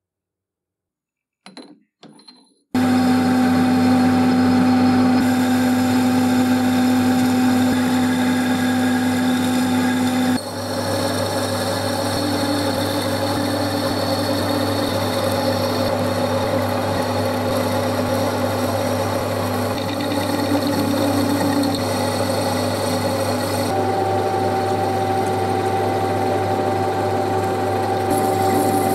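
Metal lathe running, turning a brass part. A few faint clicks come first, then the lathe comes in suddenly about three seconds in as a loud, steady motor and gear hum, and its tone shifts twice.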